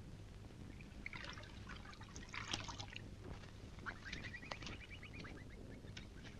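Water splashing, trickling and dripping around a small rowing boat in the reeds, as a wet wicker fish trap is handled and lifted out of the pond, in scattered short splashes from about a second in.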